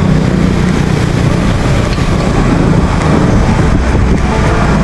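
Steady wind buffeting on a GoPro Hero 7 Black's microphone from riding a bicycle, with motorbike and car traffic running beneath it.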